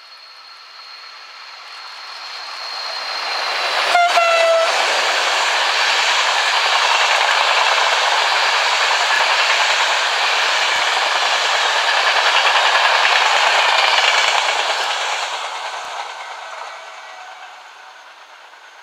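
Passenger train passing at speed: the horn sounds one short blast about four seconds in as it comes close, then the loud rolling rush of the coaches going by, fading away over the last few seconds.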